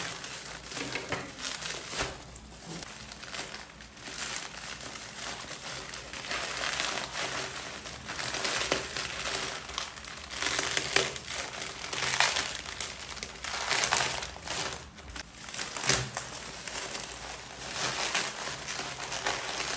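Bubble wrap crinkling and rustling as it is pulled apart and unwrapped by hand, in irregular stretches, with one sharp click about three quarters of the way through.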